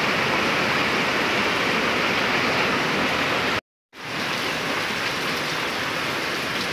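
Steady, dense rush of fast-flowing floodwater. It cuts out completely for a moment just past halfway, then returns a little quieter.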